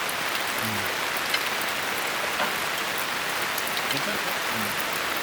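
Steady rain falling, an even hiss dotted with the sharp ticks of single drops striking nearby.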